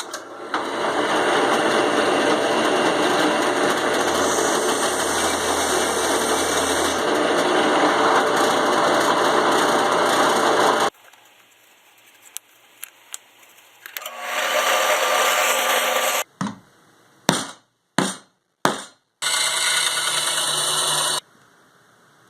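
A power tool running, most likely working the plywood, in three runs: a long one of about ten seconds, then two of about two seconds each, each stopping abruptly. A few sharp knocks fall between the last two runs.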